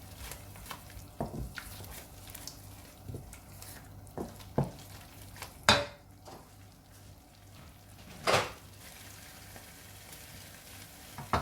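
A spoon stirring and scraping spice masala as it fries in a cooking pot, with a faint sizzle under it. Scattered clinks and scrapes, two of them louder: one a little past halfway and a longer scrape later on.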